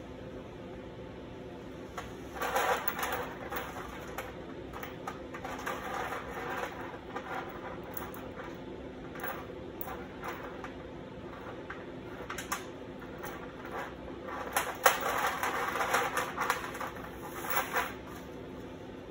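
Steel chain links clinking and sliding on a steel sheet as they are pushed into shape by hand. The handling comes in irregular bursts of rattling, about two seconds in and again between about 15 and 18 seconds in, over a steady low hum.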